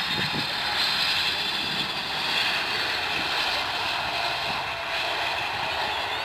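Four jet engines of a Boeing 747 airliner on landing: a steady rushing roar with high whining tones, as the jumbo jet flares, touches down and rolls out on the runway.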